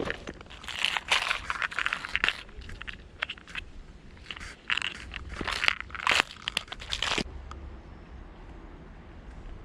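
Irregular crunching footsteps through dry ground cover, stopping about seven seconds in.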